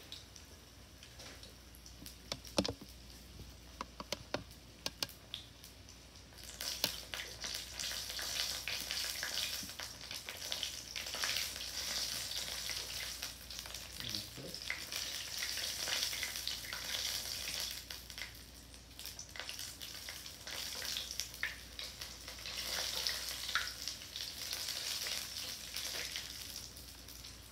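Conch fritters frying in hot oil in a nonstick pan: a low sizzle with a few light clicks for the first six seconds or so, then louder, fuller sizzling while the fritters are turned over with tongs.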